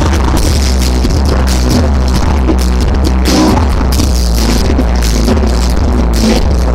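Live indie rock band playing loud through a venue PA, heard from the audience: a heavy, steady bass line under evenly spaced drum kit hits and keyboards.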